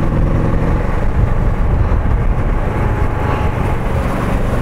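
Motorcycle engine running steadily under way, a continuous low drone with road noise.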